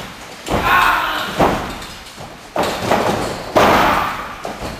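Wrestlers' bodies slamming onto the wrestling ring's mat, about four heavy thuds, each ringing on with the echo of a large hall.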